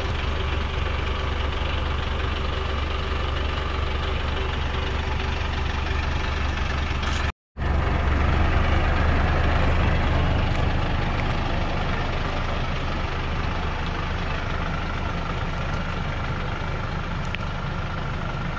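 A loaded log truck's engine idling steadily. The sound cuts out completely for a moment a little past the middle, then comes back slightly louder for a few seconds.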